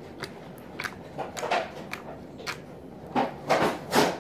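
Lavender jiggly slime being pressed on a table and then folded and stretched by hand, giving a string of short, irregular clicks and squishes that grow louder, the loudest near the end.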